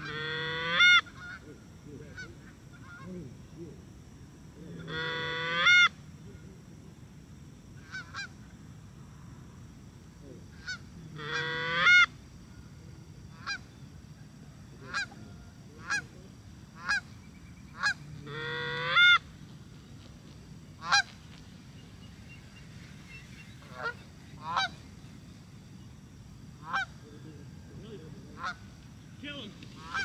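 Goose honks: four drawn-out honks that swell and break off sharply, several seconds apart, then a run of short single clucking honks roughly a second apart in the second half.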